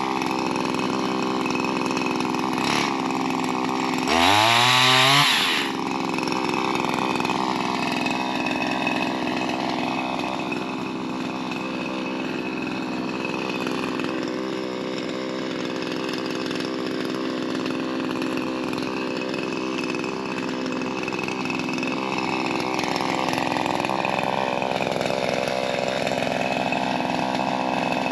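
Shindaiwa M230 multitool's small two-stroke engine running a pole-saw head, mostly at a steady idle, revved hard once about four seconds in for about a second and a half before dropping back.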